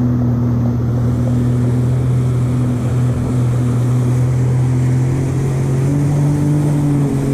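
Jet ski engine running steadily at speed while towing a sea biscuit rider. The engine note rises slightly near the end and then settles back.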